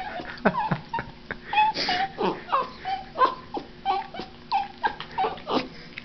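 Cairn terrier puppy whining in a rapid string of short, high whimpers, about two a second, as she is shaken in her owner's hands.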